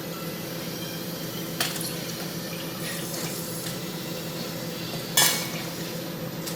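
Jewelry casting machine with a melting furnace running with a steady hum. Two sharp metallic clanks come, the louder one near the end, with a brief hiss between them.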